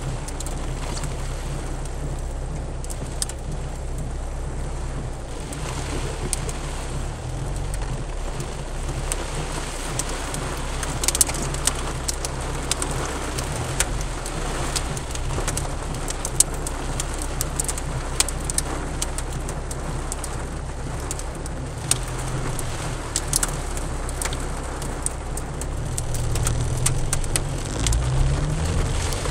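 Heavy rain pattering on a car's roof and windshield, heard from inside the cabin, over the steady low hum of the engine. Raindrops make many sharp ticks, a few of them louder. Near the end the engine note rises.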